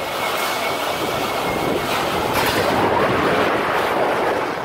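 Tornado wind and driven rain against a storefront's glass windows, heard from just inside the building: a loud, steady rushing noise with no let-up.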